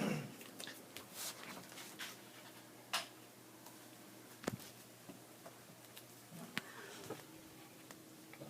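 A cat and a dog at play: faint scattered taps and scratching, with a few sharper clicks, over a faint steady hum.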